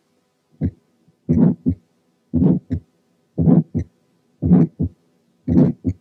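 Recorded heart sounds with an ejection systolic murmur, about one beat a second. Each beat is a longer, swelling crescendo-decrescendo ('diamond-shaped') sound that starts just after the first heart sound and fades before the short second heart sound. This is the pattern of the ejection type, typical of aortic or pulmonary stenosis. A faint steady hum lies underneath.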